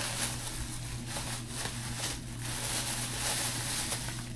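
Paper rustling and crinkling as a gift bag is rummaged through, with a steady low hum underneath.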